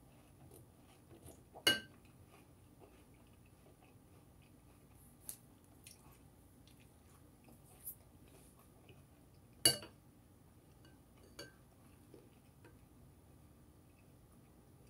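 A spoon clinking against a cereal bowl: two sharp clinks about eight seconds apart, the second the loudest, with a few fainter taps between them, over faint chewing of crunchy cereal.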